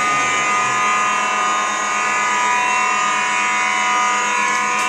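Building fire alarm sounding a loud, steady, unbroken tone.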